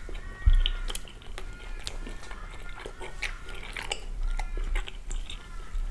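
Close-up eating sounds: pancake being chewed, with wet mouth clicks and smacks. There is a low thump about half a second in, and near the end a knife and fork cut into the pancake on a wooden board.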